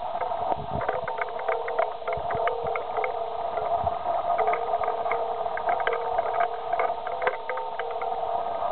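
Pig chewing cherries, with many irregular crunching clicks as it bites the fruit and its pits. A steady engine drone runs underneath.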